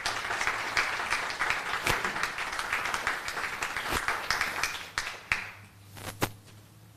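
Audience applauding, the clapping fading out about five seconds in, followed by a couple of sharp knocks.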